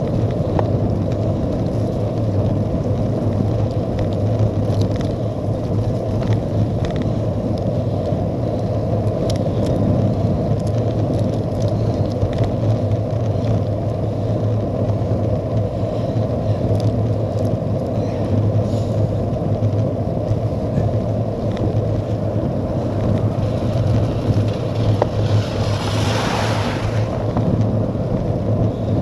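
Wind rushing over the microphone of a handlebar-mounted camera, with tyre noise from a cyclocross bike rolling on a wet road at about 15 mph. A brief louder hiss comes near the end.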